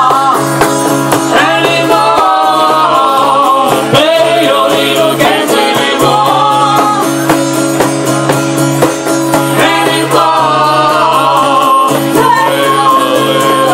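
Band music with guitars under a wavering lead melody.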